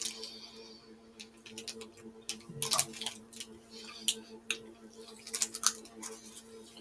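Scattered light crinkles and clicks of a plastic snack wrapper as a chocolate wafer bar is handled and bitten, over a steady refrigerator hum.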